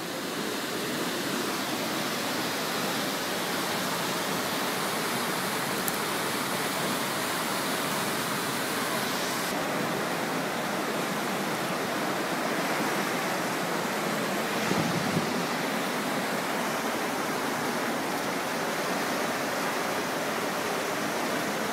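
Floodwater rushing in a steady torrent through a car park, a constant even roar of fast-moving water.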